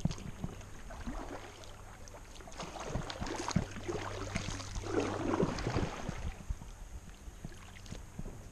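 A kayak being paddled: paddle strokes splash and drip in the water, with scattered light knocks against the hull, loudest about five seconds in.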